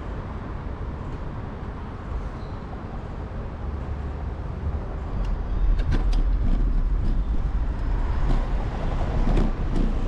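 Road traffic noise heard from a bicycle: a steady rumble of motor vehicles that grows louder about halfway through, with a run of short sharp clicks from then on.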